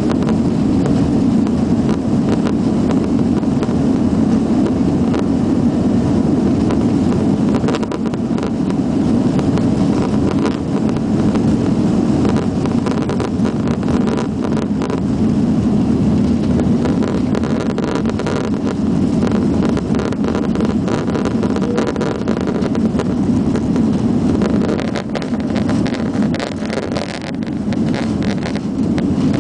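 Cabin noise of an Airbus A330-300 at takeoff thrust: a steady, loud engine rumble with rushing air through the takeoff roll, liftoff and initial climb. The level eases a little near the end.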